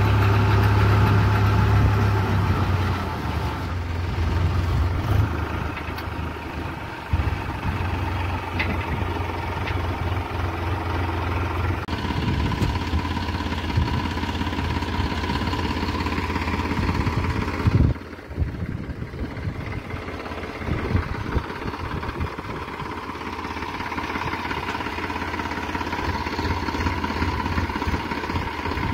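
Tractor diesel engine running steadily, louder and heavier at first while it drives a post hole auger into the soil, then running on more quietly and evenly. One sharp knock about eighteen seconds in.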